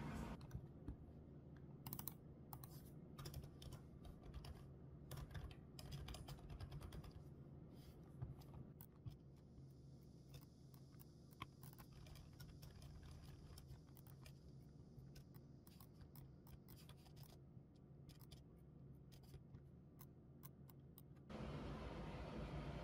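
Faint, irregular clicking of typing on a computer keyboard, stopping about 21 seconds in.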